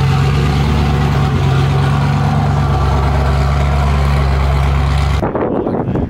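Geo Tracker's engine and exhaust running loudly at a steady pitch, cutting off suddenly about five seconds in.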